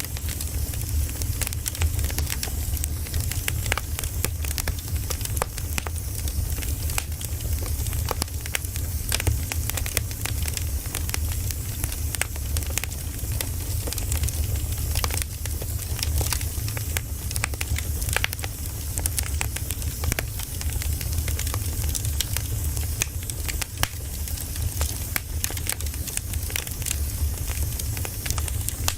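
Campfire burning: a steady low rumble of flames with frequent sharp crackles and pops of burning wood.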